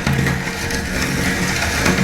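Electric meat grinder's motor running steadily, with irregular crackling and crunching as food is crushed through it.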